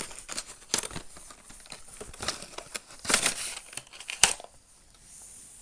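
Product packaging being opened and handled: plastic crinkling and rustling with irregular sharp clicks and taps, a louder rustle about three seconds in and a sharp click just after four, then it quietens.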